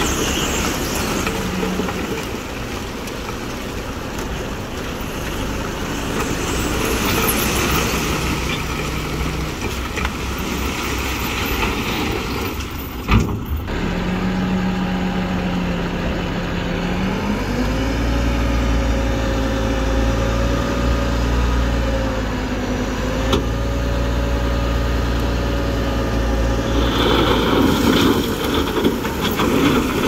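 Diesel engines of heavy earthmoving machinery running. There is a single sharp knock about 13 seconds in, and the engine note steps up and grows heavier about 17 seconds in.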